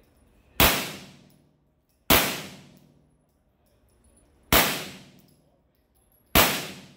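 Four single shots from a Glock 17L 9mm longslide pistol at uneven spacing, with gaps of about one and a half to two and a half seconds between them. Each shot has a long echo that dies away over about a second in the concrete indoor range.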